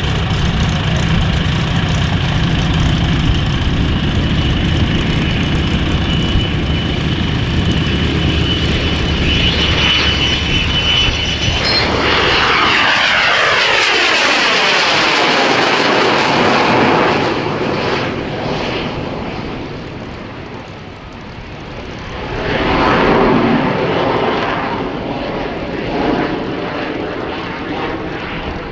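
Cessna A-37B Dragonfly's twin General Electric J85 turbojets running loud with a steady high whine, then, about twelve seconds in, a falling sweep in pitch as the jet passes. The sound eases off and swells again near the end.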